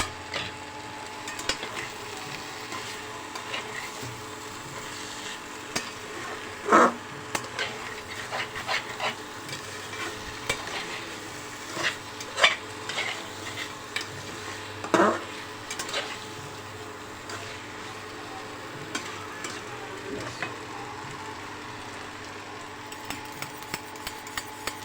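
A spoon or spatula stirring and scraping cauliflower and potatoes in a kadai over a steady sizzle of frying, with a few louder scrapes against the pan.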